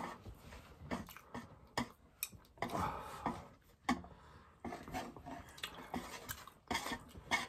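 Chopsticks clicking and scraping against a metal baking tray as noodles are picked up, with a few short low mouth sounds from someone eating very spicy food in between.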